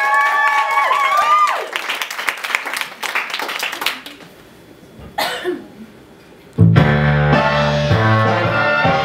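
A drawn-out, gliding voice calling out, then audience applause that fades away, a short hush, and recorded music for the routine starting abruptly about two-thirds of the way through with a steady bass line.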